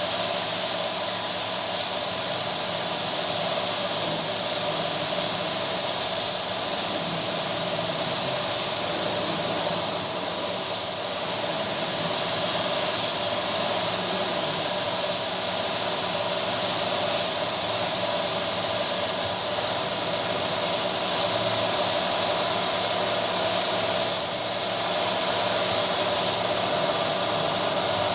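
Compressed-air spray gun hissing steadily as it sprays PU lacquer onto a wooden door, over a steady machine hum.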